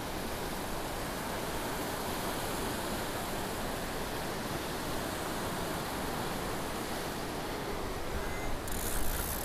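Small surf waves washing onto a sandy beach: a steady, even hiss, with a brief louder rush near the end.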